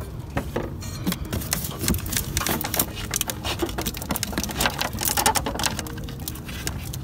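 Rapid, irregular clicking and rattling of a hand ratchet and metal parts being worked on bolts under a car, over a low steady hum.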